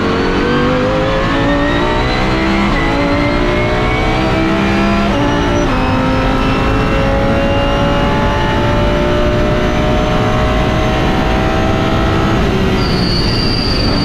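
Lamborghini Huracán GT3's naturally aspirated V10 at full throttle, heard onboard: it climbs in pitch and drops back at each quick upshift, several times, then pulls in a higher gear until the throttle lifts about twelve seconds in, when a high steady whine comes in. The early shifts are short shifts to keep the car under a 103 dB track noise limit.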